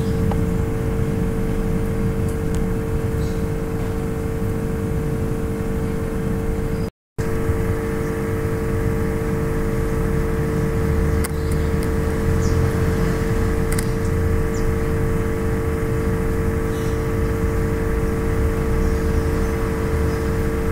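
Steady mechanical hum with a constant mid-pitched tone over a low, uneven rumble, dropping out for a moment about seven seconds in.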